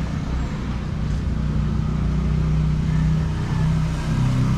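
A motor vehicle's engine running steadily, its note shifting about four seconds in.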